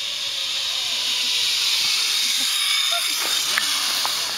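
A steady high hiss that swells slightly in the middle and fades away near the end.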